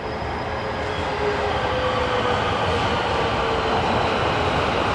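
JR 223 series 5000-subseries and 5000 series Rapid Marine Liner electric train pulling into a station, its running noise slowly growing louder as it draws alongside. A faint whine falls slowly in pitch as the train slows to stop.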